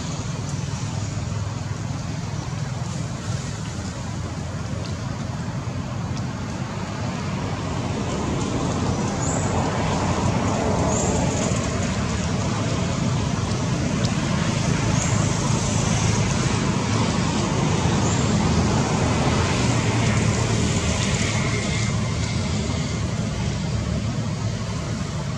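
Steady low rumble and hiss of outdoor background noise, swelling a little midway through.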